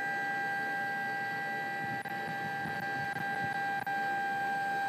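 Hoist on a fall-protection drop-test frame raising a 220 lb test weight, a steady whine.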